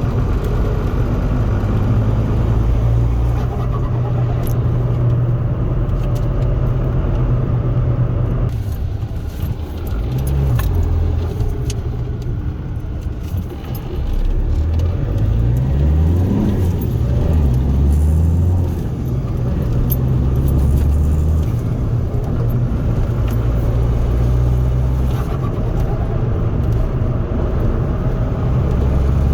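Remapped Ford Focus 1.8 TDCi four-cylinder turbo-diesel heard from inside the cabin while driving, over road noise. The engine note drops off suddenly about eight seconds in, then climbs again in rising sweeps as the car accelerates through the gears.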